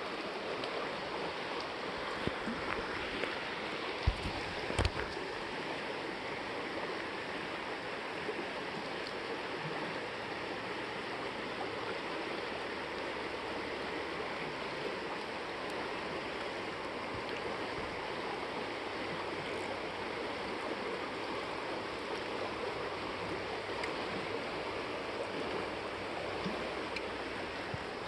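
Shallow stream water rushing steadily over rocks in a riffle. A few short sharp knocks stand out about four to five seconds in.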